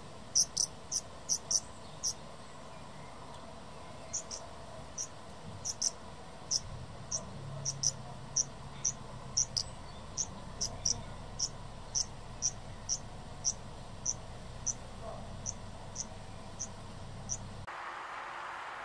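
An insect chirping: short, high-pitched chirps repeated about twice a second, stopping suddenly near the end, where a steady hiss takes over.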